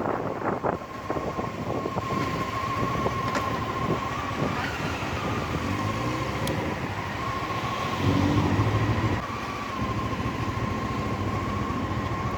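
Motorcycle on a brake test ride, heard from onboard: wind and road noise over the engine, with a thin steady whine throughout. The engine note shifts about six seconds in and comes up stronger about eight seconds in.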